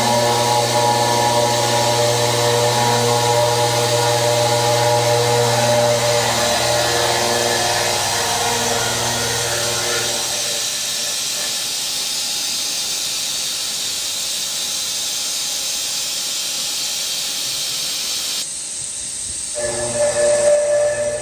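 CNC mill spindle driving a face mill across the top of a rough cast iron casting: a light skim cut, with steady hiss and several steady tones from the spindle and cutter. The tones fade out about halfway. The sound changes abruptly a couple of seconds before the end, and the tones then come back.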